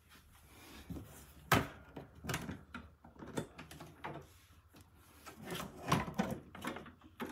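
Wooden sideboard cabinet door being opened and handled: a sharp click about a second and a half in, then a run of light wooden knocks and clicks.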